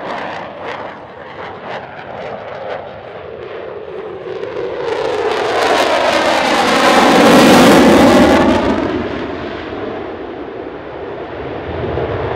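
Belgian Air Force F-16 Fighting Falcon's Pratt & Whitney F100 turbofan in afterburner, flying past. Sharp crackling in the first few seconds, then the jet noise swells to its loudest about seven to eight seconds in, with a sweeping pass, and fades away.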